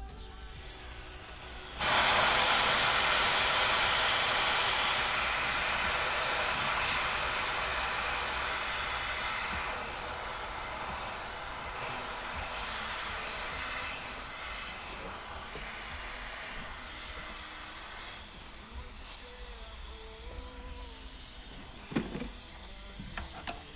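Leftover refrigerant hissing out of the air-conditioning line as the expansion-valve fitting is loosened. The hiss starts suddenly and loud about two seconds in, then fades slowly to a faint hiss over some fifteen seconds. The owner takes this leftover gas for the likely reason the compressor was still engaging. A short knock comes near the end.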